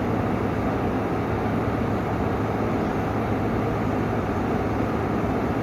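GE window air conditioner running steadily: fan air noise over a constant low hum.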